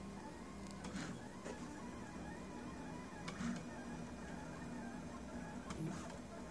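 Prusa Mendel RepRap 3D printer's stepper motors running mid-print: a steady low whine with a few faint clicks.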